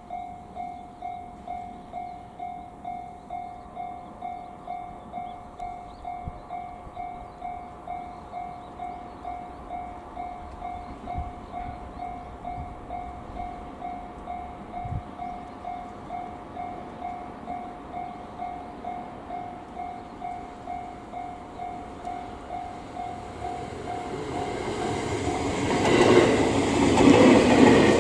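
Japanese railway level-crossing alarm ringing in steady, even pulses, about one and a half a second, as a JR West 287 series 'Panda Kuroshio' electric train approaches. The train's running noise swells over the last few seconds as it passes close by.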